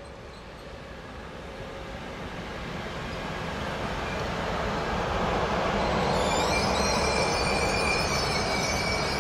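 E6 series Shinkansen (Komachi) train running slowly past at close range, its rumble growing steadily louder as it approaches. About six seconds in, a high-pitched squeal from the wheels rises over the rumble.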